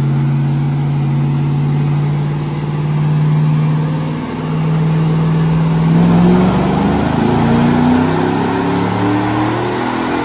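Chevrolet Silverado's 5.3-litre LS V8 running on brake cleaner instead of gasoline, under load on a chassis dyno. It holds a steady pitch, then climbs in revs from about six seconds in as the pull builds. The fuel runs lean and the engine spark-knocks badly.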